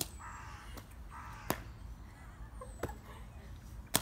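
Footsteps of shoes striking stone paving: four sharp, separate steps, roughly one every second and a half. A crow caws twice in the first second and a half, with faint bird chirps in the background.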